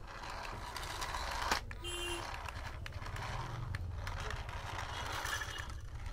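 Small electric motor of a toy radio-control car whirring as it drives across a wooden floor, with a few sharp clicks and a short beep about two seconds in.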